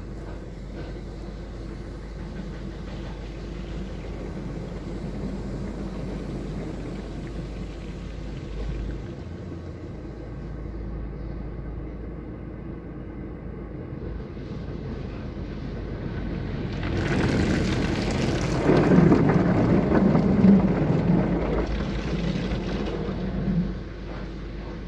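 Car-wash water spray and soap foam washing over a car's windshield, heard from inside the car as a muffled steady rush with a low hum. About two-thirds of the way through, the spray grows louder for several seconds, then drops back.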